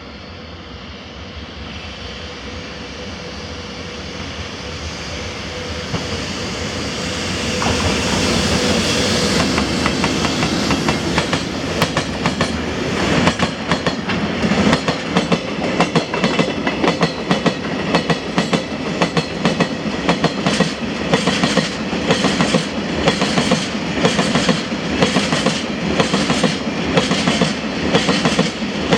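Freight train approaching and passing, growing steadily louder over the first eight seconds or so. From about a third of the way in, a string of chemical and empty oil tank wagons rolls by with a regular clickety-clack of wheels over the rail joints.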